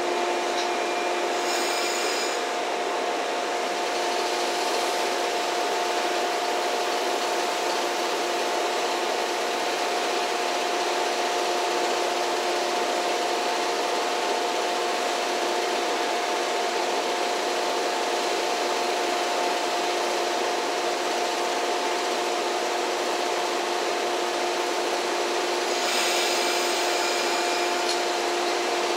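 A JR West 115 series electric train standing at the platform, its onboard equipment giving a steady hum of a few fixed tones over a hiss. Brief higher-pitched sounds join it about two seconds in and again near the end.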